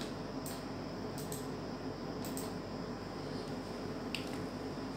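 Room tone: a steady low hum with a few faint, soft clicks.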